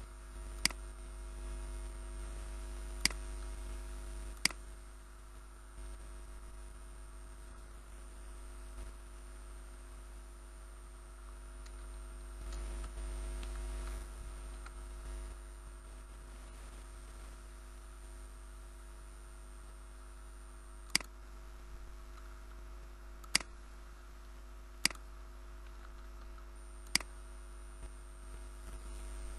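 Sharp, single computer mouse clicks, three near the start and four in the last third, over a steady electrical hum with a low rumble.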